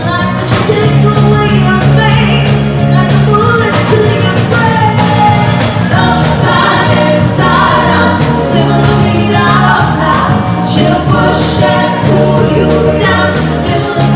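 Live band: women singing together at microphones, backed by electric guitar, bass guitar, keyboard and a drum kit keeping a steady beat.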